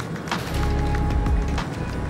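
Background music with a deep bass and a beat.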